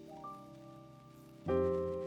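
Background music: soft, slowly fading chords on a keyboard-like instrument, with a new, louder chord about a second and a half in.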